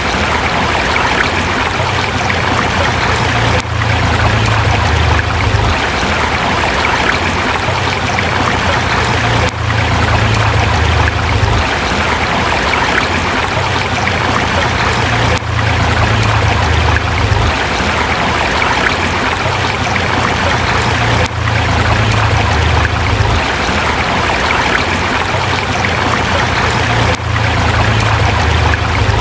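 River water flowing steadily over rocks, a loud and even rush, with a slight dip in level about every six seconds.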